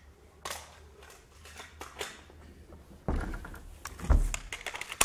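Footsteps and handling noises on a wooden stage, with a heavy thump about four seconds in as he gets down by the stool, then a quick run of small sharp clicks near the end as a cassette is handled at a portable tape recorder.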